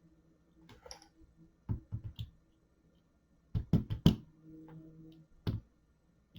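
Small sharp clicks and taps as the lock's tiny tapered spool drivers and springs are handled and set down, with a louder cluster of clicks about halfway through.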